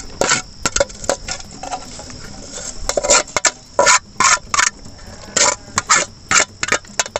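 Metal utensil scraping and clinking against the inside of a metal cooking pot, about a dozen sharp, uneven scrapes and knocks, while snails in broth are scooped out.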